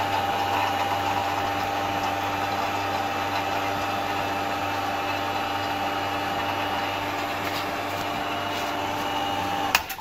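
Refrigeration vacuum pump running with a steady hum while evacuating a fridge's R134a sealed system through the manifold gauges; the sound cuts off suddenly near the end.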